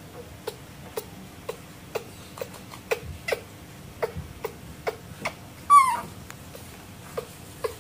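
Baby macaque giving one short, high call that falls in pitch, about six seconds in, the loudest sound here. Under it a clock ticks steadily, about twice a second.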